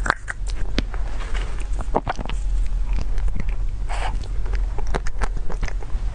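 Close-miked eating sounds: wet lip smacks and chewing clicks on a soft whipped-cream dessert, with a spoon scooping in a plastic cup. Many short sharp clicks come in quick succession over a steady low hum.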